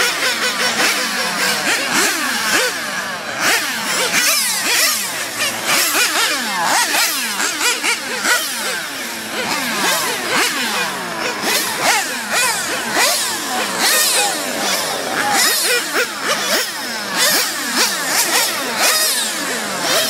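Several remote-control race cars' small engines screaming at high revs, several at once, their pitch rising and falling over and over as they accelerate, brake and pass.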